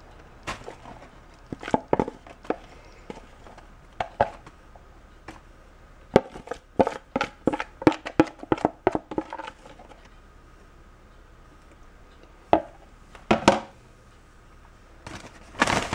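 Chocolate-coated cereal being put into a plastic zip-top bag: a run of irregular clicks and knocks, thickest around the middle, with a couple more near the end.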